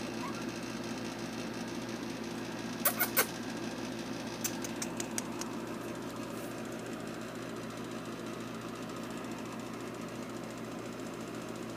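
A steady low hum, like a small motor running. About three seconds in come three sharp clicks in quick succession, followed a second later by a run of about five lighter clicks.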